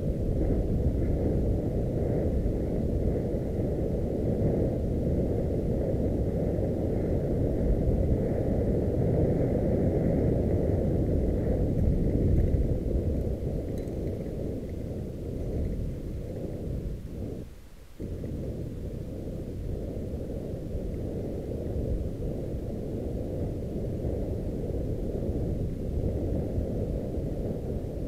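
Muffled, steady rumble of wind and trail vibration on an on-board camera while a mountain bike rolls down a dirt forest trail. The noise drops away briefly about two-thirds of the way through, then picks up again.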